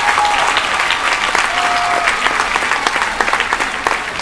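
Large audience applauding, many hands clapping together, the clapping slowly dying down.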